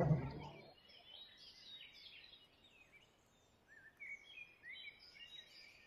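Faint bird chirps and short sliding trills in the background.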